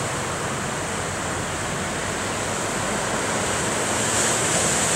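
Ocean surf breaking and washing over shoreline rocks: a steady rushing wash, a little louder near the end.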